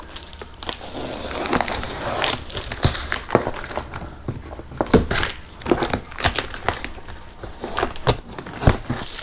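A knife slicing the packing tape on a large cardboard box, with crinkling tape and scraping cardboard, broken by scattered sharp clicks and knocks as the flaps are worked.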